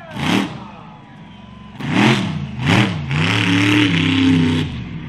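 Mega truck engine revving hard in quick blips, three short rises and falls of pitch, then held at high revs for about a second and a half before dropping off near the end.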